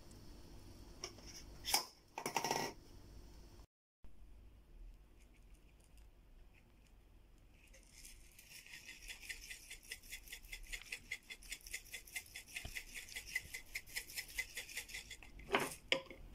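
A pepper grinder being twisted over the wings, cracking black pepper: a fast, even, raspy grinding rattle of several strokes a second that starts about eight seconds in and lasts about seven seconds. Before it, a few short knocks and rustles of hands handling the seasoned chicken in a plastic container.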